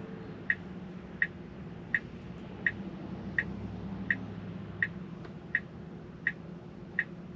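Tesla Model 3 turn-signal indicator ticking steadily, about one tick every three-quarters of a second, over a low steady cabin hum.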